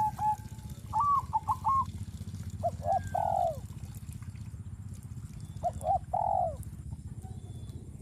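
Birds calling: two quick runs of short repeated notes, then twice a pair of longer calls that rise and fall in pitch. A steady low rumble runs underneath.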